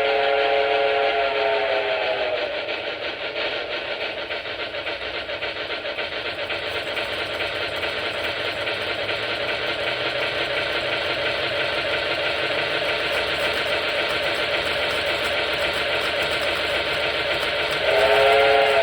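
Lionel K-Line A-5 model steam locomotive's onboard sound system: a chime steam whistle ends about two seconds in, then steady fast steam chuffing, and the whistle blows again near the end.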